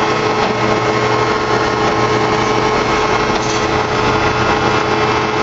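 Commercial flour tortilla oven machine running: a steady hum and whir from its electric drive and conveyor machinery, with a few held tones over the noise.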